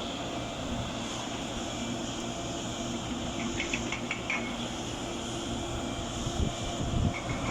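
A steady engine running under outdoor noise, with a short cluster of light clinks a little past the middle and two low thumps near the end.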